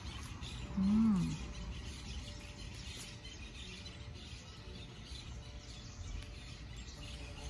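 Quiet outdoor ambience with faint bird chirps. A person makes one short voiced sound about a second in.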